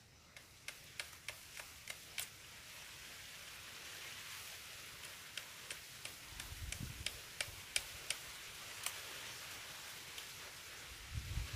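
Machete blade striking a cut bamboo cane as the side shoots are trimmed off: a long series of sharp, light knocks, two or three a second, with rustling leaves.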